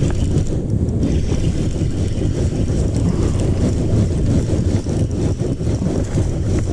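Wind buffeting the microphone: a steady low rumble with no clear tone.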